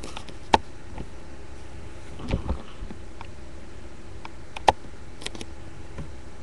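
Plastic toy figures being handled and set down: a few sharp clicks and soft knocks, the two loudest about half a second in and just before five seconds in, over a steady low hum.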